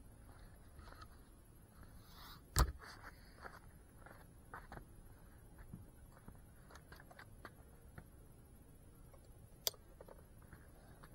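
Handling noise from an FPV quadcopter as it is set down on pavement: one sharp knock about two and a half seconds in, then faint scattered ticks and a small click near the end, with the motors not running.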